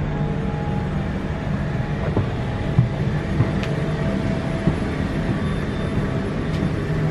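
Steady low rumble of airliner cabin noise inside a Boeing 787-9 on the ground after landing, with a few faint clicks and knocks.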